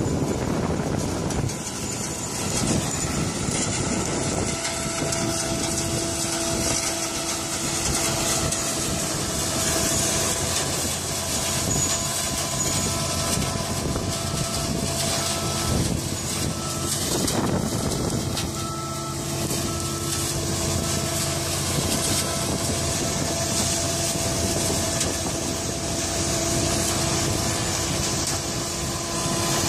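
New Holland 3550 AL combine harvester running steadily under load while harvesting sunflowers: a continuous machine drone with a few steady held tones.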